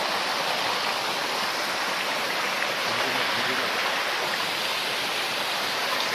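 Creek water cascading over rocks: a steady, even rush of flowing water.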